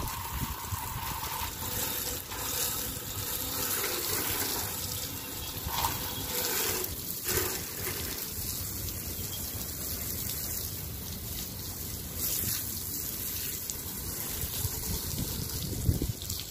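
Water spraying from a hand-held garden hose and splashing onto the tubes of a rooftop solar water heater and the concrete roof floor: a steady gushing splash.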